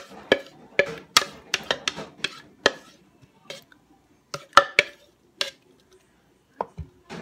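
Metal clinks and scrapes of cans and a utensil against a crock pot as condensed cream of mushroom soup is emptied into it: a quick run of sharp clinks at first, then a few scattered ones and a dull thump near the end.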